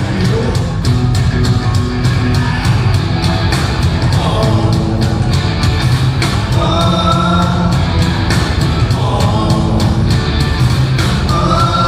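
Live rock band with two drum kits playing a fast, even beat under electric guitars, and a male lead singer's lines coming in and out over it, heard through the hall's sound system.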